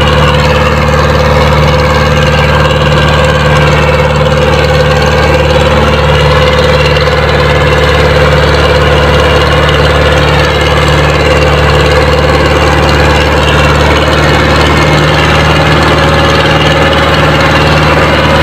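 Powertrac Euro 60 tractor's diesel engine running steadily under load while pulling a single disc harrow through the soil.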